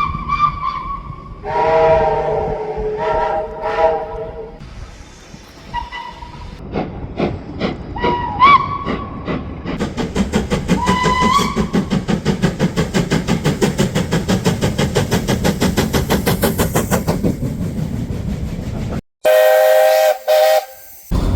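Train whistles and horns from a railway compilation. A short high whistle comes first, then a lower multi-note chord blast of about three seconds and several brief toots. A long run of rapid, even beats from a moving train follows, and after a sudden cut a loud multi-note horn blast sounds near the end.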